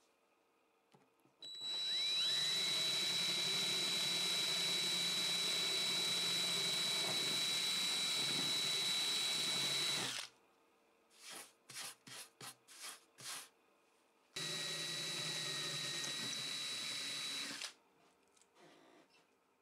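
Electric drill boring new bridge-pin holes through a guitar's spruce top: a steady motor whine that climbs in pitch as it spins up and runs about eight seconds, then a quick series of short bursts, then a second steady run of about three seconds.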